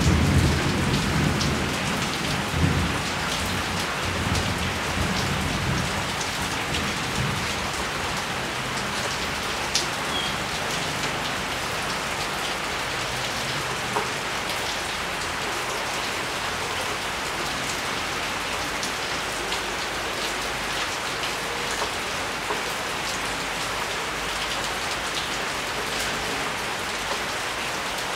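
Steady heavy rain with scattered close drop ticks. A low thunder rumble dies away over the first several seconds.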